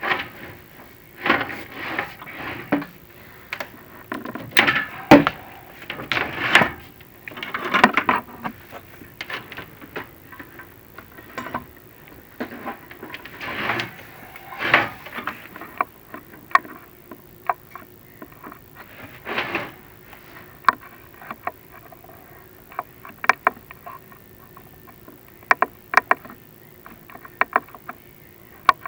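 Irregular knocks, scrapes and sharp clicks from a chimney inspection camera and its cable rubbing and bumping against the flue walls as it is lowered. The noises are heavier and more frequent in the first ten seconds or so, then thin out to scattered clicks.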